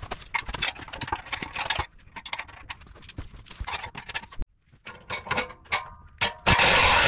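Small metal parts clinking and tapping as a bolt and washers are fitted into a steel plow mount, then near the end a cordless power drill starts running loudly.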